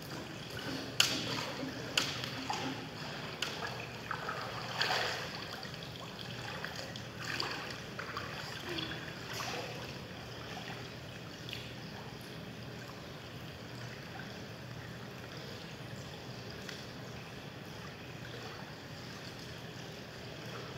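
Pool water splashing and sloshing as a swimmer moves through it close by: several sharp splashes in the first five seconds, then softer lapping over a steady low hum.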